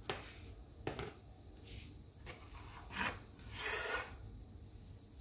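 Chef's knife scraping and pushing chopped callaloo leaves: a few short scrapes, then a longer, louder scrape about three and a half seconds in.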